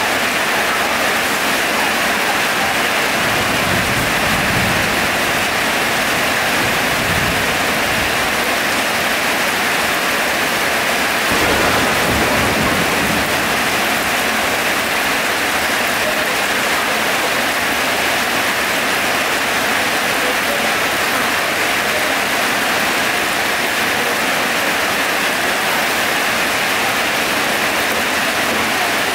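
Heavy rain falling steadily in a dense, even hiss, with a low rumble a few seconds in and another about twelve seconds in.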